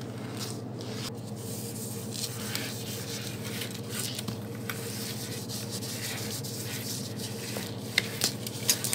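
Cotton pad rubbing and scraping over a red-eared slider's hard, wet shell in short scratchy strokes, over a steady low hum, with a couple of sharp clicks near the end.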